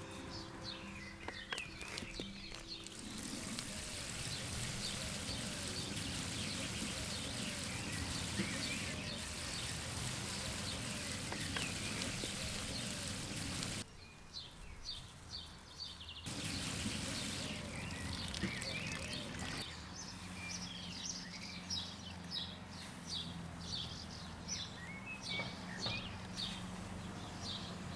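Outdoor ambience with small birds chirping repeatedly over a steady background hiss of wind or rustling. The background changes abruptly twice, about halfway through, becoming much quieter for a couple of seconds.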